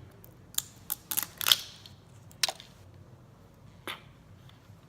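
A run of sharp clicks and taps from handling small objects, several close together in the first second and a half, then two more spaced out.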